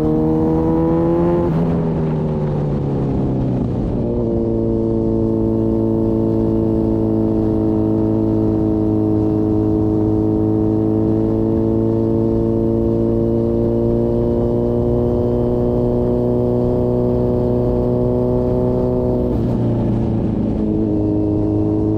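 Motorcycle engine running under way. Its pitch climbs, breaks off about two seconds in, then holds nearly steady, with another brief change near the end.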